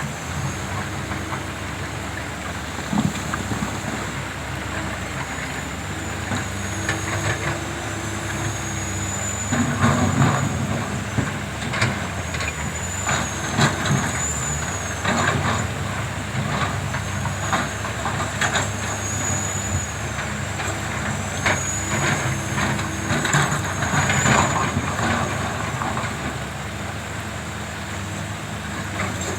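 Diesel engines of hydraulic excavators running steadily, with scattered knocks and clatter of the buckets working stones and soil, busier from about a third of the way in.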